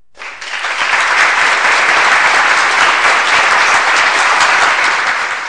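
Applause: a crowd clapping, swelling up over the first second, holding steady and tapering off near the end.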